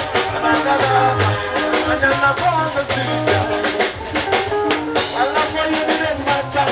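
Live band music at a steady beat: drum kit hits over a repeating electric bass line, with other instruments filling above.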